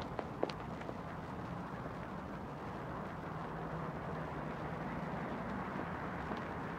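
Two last footsteps on hard ground right at the start, then steady outdoor background noise with a faint low hum that swells slightly midway.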